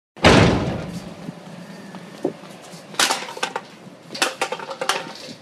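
A sudden loud impact that fades out over about a second, followed by scattered clicks and clattering knocks.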